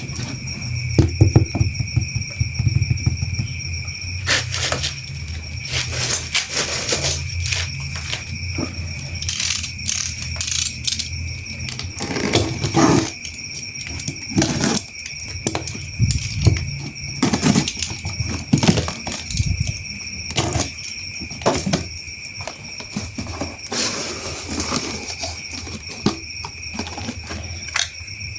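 Irregular clicks, knocks and rattles of plastic toy parts being handled, over a steady high-pitched whine.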